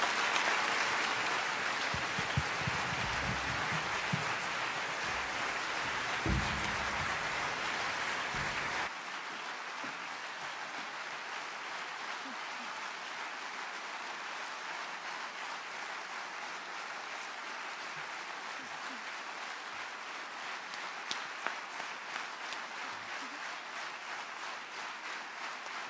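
Theatre audience applauding steadily. About nine seconds in, the deeper part of the sound drops out suddenly and the applause goes on a little quieter.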